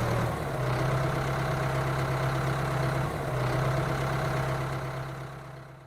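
Engine idling steadily with an even hum, fading out over the last second or so.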